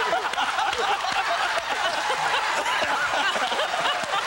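Studio audience and guests laughing together, many voices at once, at a steady level.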